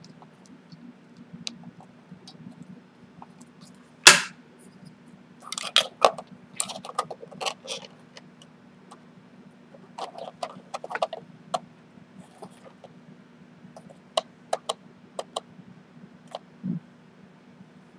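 Clicks, taps and scrapes of a 3D-printed plastic tray and servo wiring being handled and pressed into an airframe's fuselage bay, with one sharp snap about four seconds in and clusters of small clicks after it. A steady low hum runs underneath.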